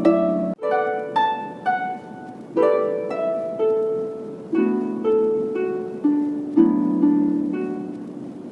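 Background music: a melody of plucked, harp-like notes, each struck and then fading away.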